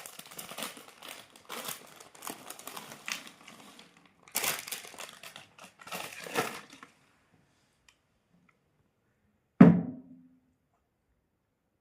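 Irregular crinkling and crunching of crisps and their foil packet being handled and eaten, for about seven seconds, then a single sharp thud near the end.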